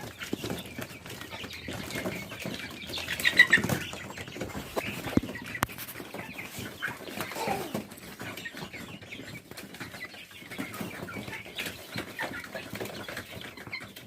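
A flock of Kadaknath chickens clucking and calling on and off, with a louder burst of calls about three seconds in.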